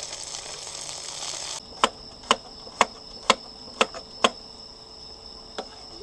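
Chicken frying in oil, an even sizzle that cuts off abruptly about a second and a half in. Then crickets give a steady high trill, over sharp clicks roughly twice a second.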